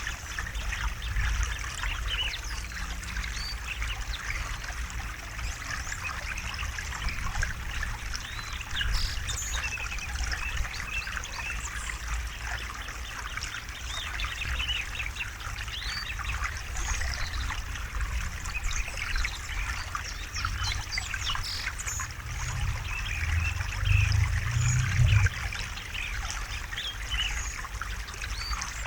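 River water flowing and trickling steadily, with small birds chirping throughout. A brief louder low rumble rises about three-quarters of the way through.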